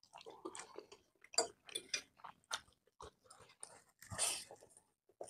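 Close-miked eating of 2X spicy noodles: irregular chewing and mouth smacks, with one longer noisy sound about four seconds in.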